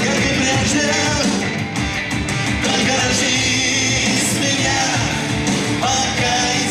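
A man singing into a microphone over loud rock backing music with a steady drum beat.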